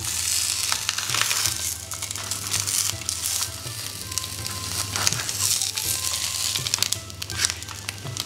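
Scorched leaf wrappers of bakcang (zongzi) crinkling and rustling as they are peeled open with tongs on a grill pan. Background music plays under it.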